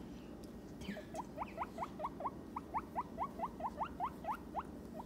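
Guinea pig giving a quick run of short squeaks, each rising in pitch, about four or five a second, starting about a second in.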